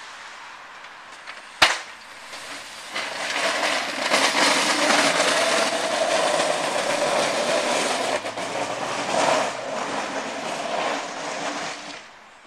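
Pickup truck with a front-mounted snow plow pushing snow across an icy lot: the steel blade scrapes over the pavement with the truck's engine running underneath, loud from about three seconds in. A single sharp knock comes just before, and the sound fades out near the end.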